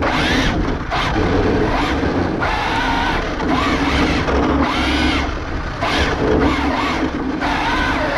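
Arrma Infraction 6S RC drift truck's brushless electric motor whining in repeated bursts of throttle, its pitch rising and falling, with tyre noise on asphalt, heard from a camera mounted on the truck.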